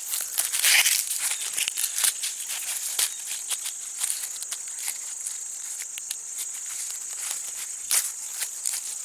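Dry corn husks rustling and tearing as ears of dent corn are husked by hand, in short crackles, the loudest about a second in and again near the end. A steady high-pitched chorus of insects runs underneath.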